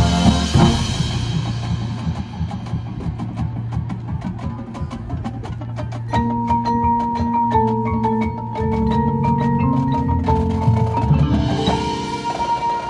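Marching band field-show music: a percussion passage of rapid, even taps over low sustained notes, then long held chord tones enter about six seconds in and carry on over the percussion.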